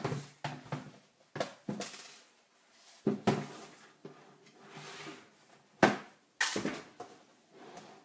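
The plastic case of an Acer ES1-511 laptop being handled, turned and set down on a wooden tabletop: a string of irregular knocks and scrapes, the sharpest about six seconds in.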